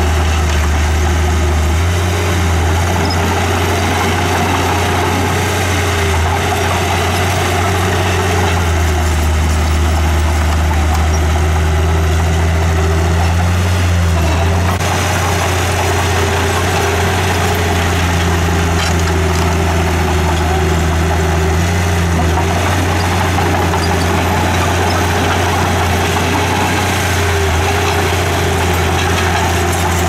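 Heavy diesel engine of earthmoving machinery running steadily with a low, even drone.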